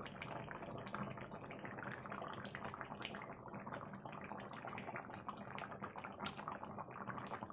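A thin fish curry bubbling at a simmer in a steel wok: a faint, steady run of small pops and bubbles.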